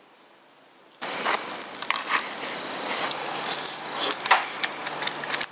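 About a second of near silence, then continuous crackling and crinkling with scattered clicks: hands handling materials on a tabletop, such as a foil pie tin and paper.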